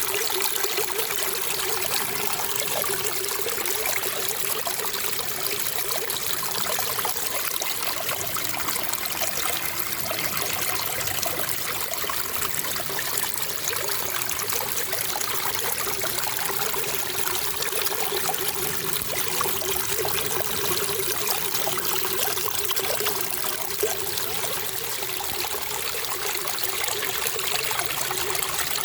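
Water trickling and splashing in a steady stream, running continuously without a break.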